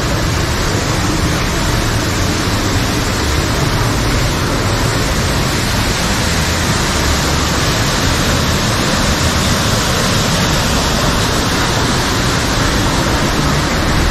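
Steady rushing of an artificial rockwork waterfall pouring into a pool.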